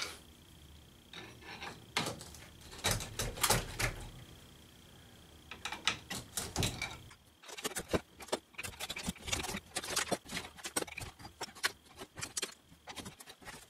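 Old fireplace bricks being pried loose with a pry bar: irregular clinks, scrapes and knocks of steel on brick and brick on brick as the mortar pops off and bricks drop onto the pile. A few knocks at first, then a quick, dense run from about halfway through.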